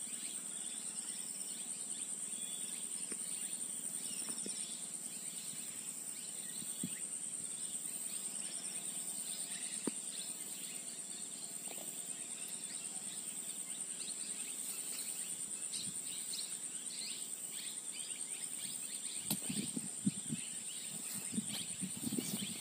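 Insects trilling steadily at a high pitch, with faint scattered bird chirps. A few low knocks and rustles near the end.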